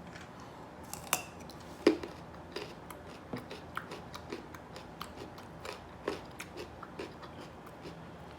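Close-miked chewing of a carrot: irregular wet clicks and crunches from the mouth, the loudest about two seconds in.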